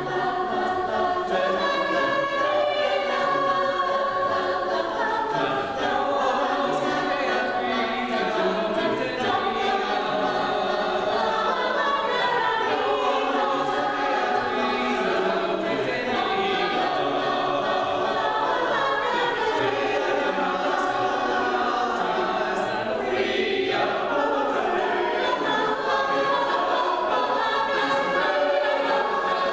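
Mixed choir of men's and women's voices singing in parts, without a break.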